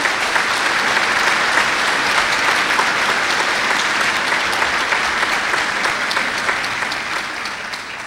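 Audience applauding, a steady clapping that tapers off near the end.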